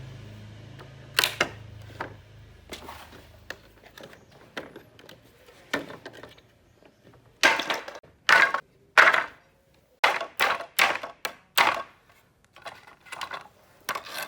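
A low machine hum dies away over the first few seconds, then sharp blows on wood come in irregular runs of two to four strikes, the loudest from about the middle on.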